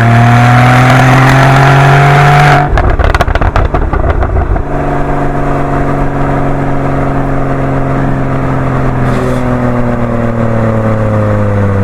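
Porsche 981 Boxster GTS's naturally aspirated flat-six through its stock sport exhaust, accelerating with rising revs. About three seconds in, on lifting off, it gives a rapid burst of exhaust pops and crackles for about two seconds. It then settles into a steady note whose revs fall slowly near the end.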